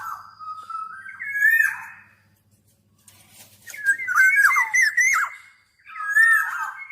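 Black-naped oriole (Oriolus chinensis) calling: three phrases of fluty whistled notes that slide up and down, the middle phrase the loudest and most broken-up, with a pause of about a second after the first.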